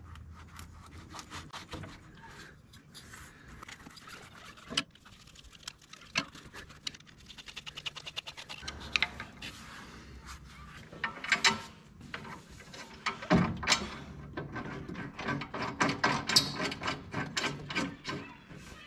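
Hand tools working a hose clamp on a skid steer's radiator hose: quick runs of clicking, with scraping and a few louder metal knocks.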